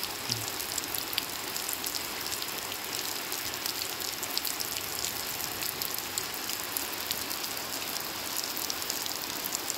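Heavy rain falling steadily onto puddled ground, with many small drop splashes.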